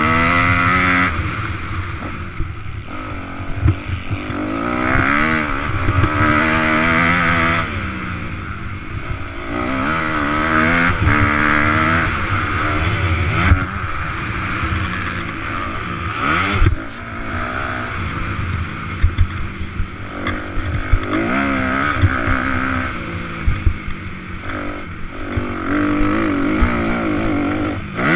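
Motocross dirt bike engine racing at full throttle, its pitch climbing and falling again and again as the rider accelerates, shifts and backs off, with wind buffeting the microphone and occasional sharp thumps from the bike over bumps and landings.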